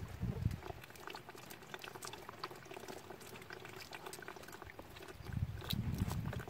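Small splashes and drips of water as hands wash roselle calyces in a plastic basin, with many light clicks and trickles. A low rumble comes in briefly at the start and again about five seconds in.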